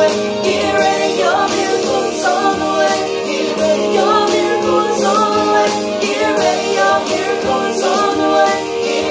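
A woman singing a gospel worship song while accompanying herself on an electronic keyboard, with held chords under her voice.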